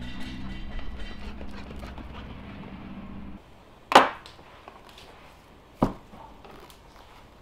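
A low steady droning sound cuts off about three seconds in. Then come two knocks on a wooden cutting board: a sharp, loud clack about four seconds in as a metal kitchen tool is handled on the board, and a duller thump near six seconds as a whole pineapple is set down on it.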